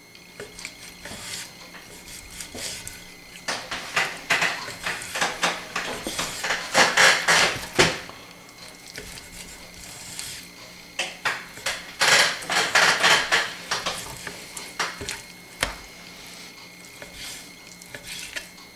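A knife cutting raw pork shoulder into small chunks, the blade knocking on a wooden cutting board. The strikes come in two quick runs with pauses and a few single knocks between.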